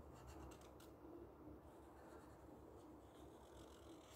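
Faint scratching of a black marker tip on paper as a circle is drawn, with a few short strokes in the first second.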